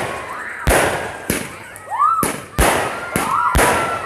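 Fireworks going off in a rapid series of sharp bangs, about two a second, with a few short rising-then-falling whistles between them.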